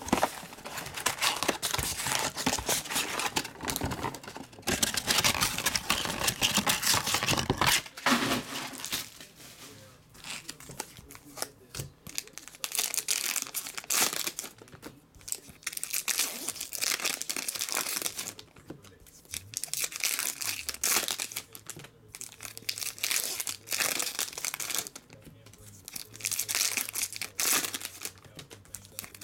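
Foil trading-card pack wrappers being torn open and crinkled by hand, in repeated bursts with short pauses between packs.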